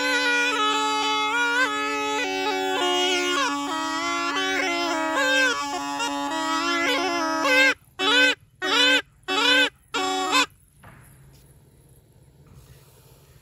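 Been (pungi), the snake charmer's gourd reed pipe, playing a wavering melody over a steady drone. About eight seconds in it breaks into four short phrases with gaps between them, then stops, leaving only faint background.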